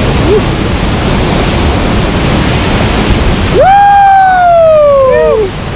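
Whitewater rushing steadily in a river rapid. About three and a half seconds in, a kayaker lets out one long whoop of nearly two seconds that slides down in pitch.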